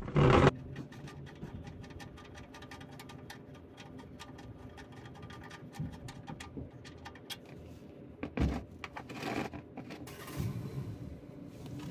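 Rapid irregular metal clicks and scrapes of a wrench turning out a loosened oil drain plug on a 1996 Dodge Ram 1500 van, with a loud clatter at the start and a few louder knocks near the end.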